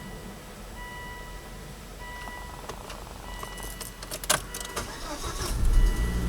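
A Volvo's dashboard warning chime sounds a steady tone about once a second. Then keys rattle, a sharp click comes, and the engine cranks and starts about five seconds in, settling into a low idle.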